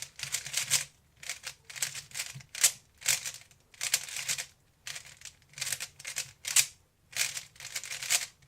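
3x3 Rubik's cube turned at high speed through repeated U-perm algorithms: rapid plastic clicking and clacking in runs of about a second each, with short pauses between runs.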